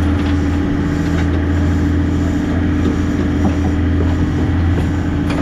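Game-fishing boat's engines running steadily, a loud, even low drone with a steady hum above it.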